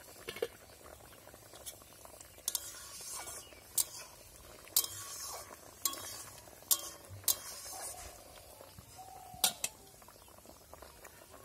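A metal ladle clinking and scraping against a metal wok, about ten sharp irregular strikes, as pumpkin pieces in tamarind water are stirred. Underneath, the liquid simmers and bubbles.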